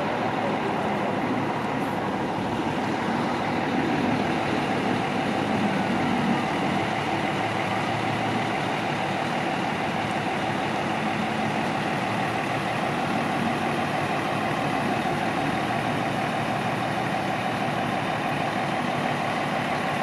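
Idling engines of parked emergency vehicles, such as a fire truck and ambulances: a steady engine hum with a constant high tone over it, unchanging throughout.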